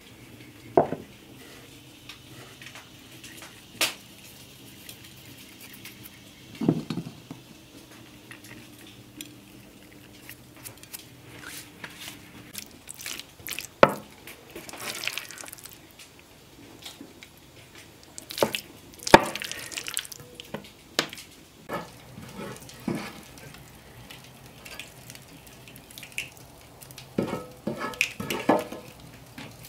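A wooden spoon stirring and scraping soft cauliflower in a cheese sauce around a metal skillet, with wet stirring sounds and scattered clinks and knocks of cookware. It comes in separate bouts with quiet gaps between them.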